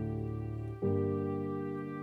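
Background music: slow, sustained keyboard chords, with a new chord coming in just under a second in.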